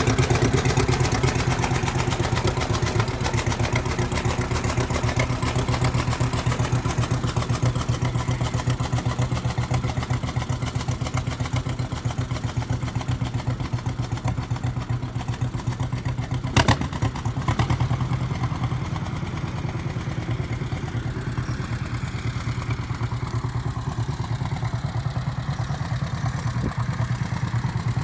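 1950 John Deere G's two-cylinder engine running through a straight-pipe exhaust, a rapid, even popping as the tractor drives off, growing slightly fainter after about two-thirds of the way through. A single sharp click sounds just before that.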